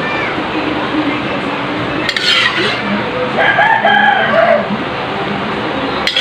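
A rooster crows once, a long drawn-out crow a little over three seconds in. Shortly before it, a metal spoon scrapes and clinks on a ceramic plate as food is served.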